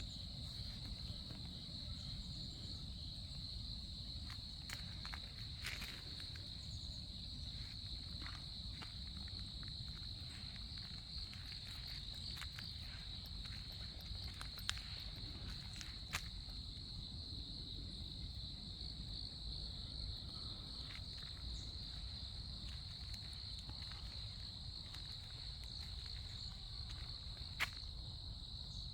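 A chorus of autumn grass insects such as crickets, trilling steadily at one high pitch, over a low rumble, with a few sharp clicks.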